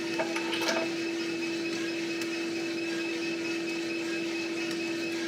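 Mill City 1 kg coffee roaster running with a steady hum from its drum and fan, with a few sharp pops of beans cracking, most of them within the first second: the beans are entering first crack.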